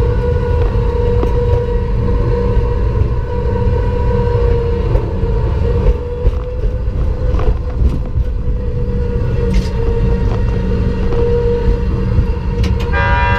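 Ride-on miniature train running along its track: a steady rumble with a steady whine and scattered clicks from the wheels on the rails. About a second before the end, a steady pitched tone with several overtones starts.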